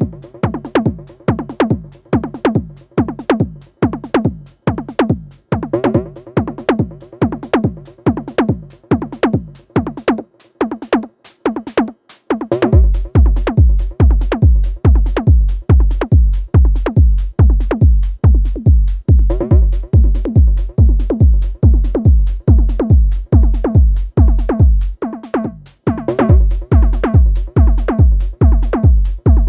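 Electronic drum-machine pattern from a 1010 Bluebox groovebox, run through a Befaco Iroi effects module: a fast, even rhythm of hits, each with a short downward-bending tone. A deep kick drum comes in about twelve seconds in, drops out briefly near the end, then returns.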